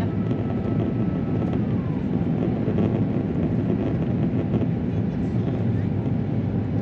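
Steady engine and airflow rumble heard inside the cabin of an Airbus A350-900 with Rolls-Royce Trent XWB turbofans. A faint high whine drops in pitch about a second and a half in.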